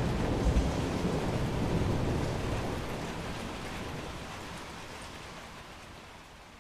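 Steady rain with a low rumble of thunder that dies away over the first few seconds. The whole sound then fades down gradually.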